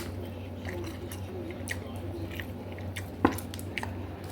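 A person chewing a mouthful of food close to the microphone, with small wet mouth clicks and one sharper click a little over three seconds in, over a steady low hum.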